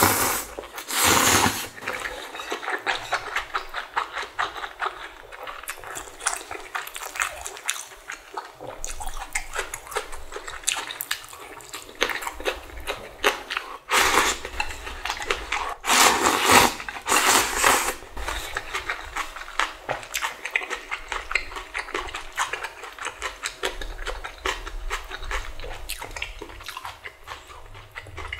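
Close-miked eating of spicy Shin Ramyun with bean sprouts: noodles slurped in loud surges about a second in, around 14 seconds and again from about 16 to 18 seconds, with wet chewing clicks in between.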